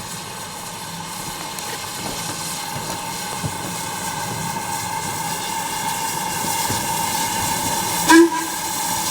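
Train approaching, its steady running sound growing gradually louder, with one short, sharp toot about eight seconds in.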